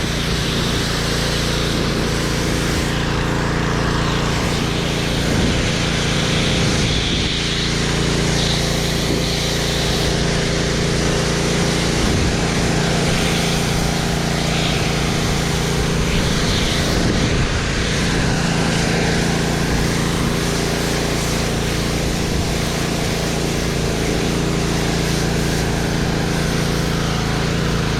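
Gas-engine pressure washer running steadily, with the hiss of its water jet spraying onto concrete.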